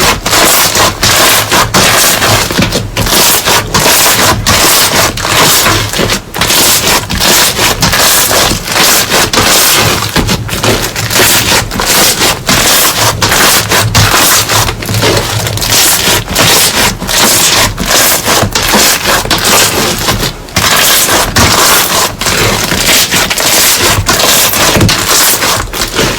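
Crunchy slime being pressed and squished, giving a dense, continuous run of crackling, crunching clicks.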